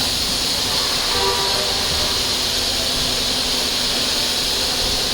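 Steady hiss of compressed air from a body-shop air tool, running without a break.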